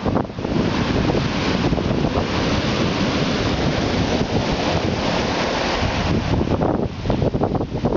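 Black Sea surf: a wave breaking and washing up the shore in a long hiss, with wind buffeting the microphone, the buffeting stronger near the end.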